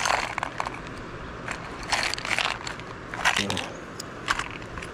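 Clear plastic tackle box being handled and opened: several short bursts of plastic crackling and clicking, the first right at the start and the others a second or so apart.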